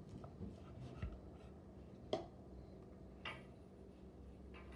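Knife trimming the ends off a rolled flour tortilla on a wooden cutting board: a few faint taps and scrapes, the clearest about two seconds in.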